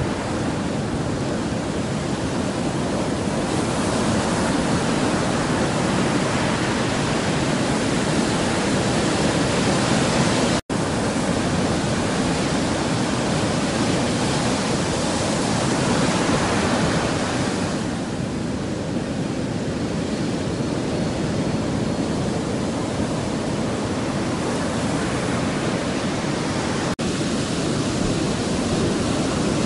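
Steady rush of surf breaking on a sandy beach. The sound cuts out for a split second about ten seconds in and again near the end.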